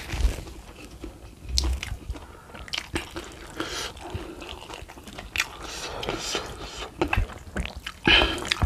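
Wet chewing and biting on a boiled beef foot and its gelatinous tendon, with sticky smacking clicks at irregular intervals and a louder burst near the end.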